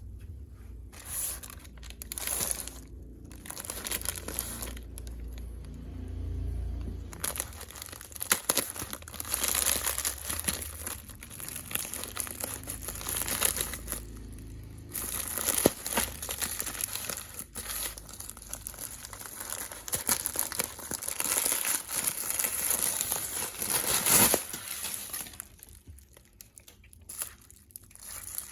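Packaging being unwrapped by hand: irregular crinkling and crumpling with some tearing, busiest through the middle and dying down near the end.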